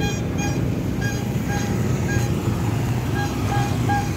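Street traffic with a steady low engine rumble, and a series of short, high beeps at uneven intervals, about nine in all, clustered near the start and again near the end.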